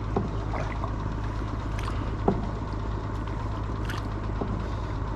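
Small boat engine running steadily with a low hum as the wooden boat moves across the water. One sharp knock sounds a little after two seconds in, and a few brief high chirps come and go.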